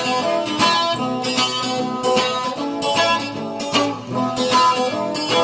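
Background music: an instrumental passage of a song, led by guitar, between sung verses.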